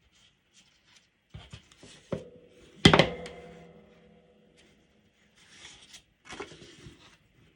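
Crafting materials handled on a tabletop: a few light taps, then one sharp knock about three seconds in that rings briefly, as of a hard object set down, followed by soft rustling of cardstock near the end.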